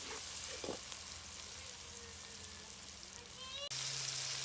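Onions frying in oil in a large metal kadai, a steady sizzle, with one knock of the stirring spoon about half a second in. About three and a half seconds in it cuts abruptly to a louder sizzle, with sliced tomatoes now frying in the oil.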